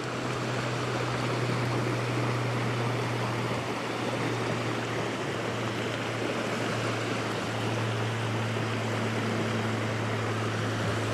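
Creek water rushing steadily over rocks, with a constant low hum underneath.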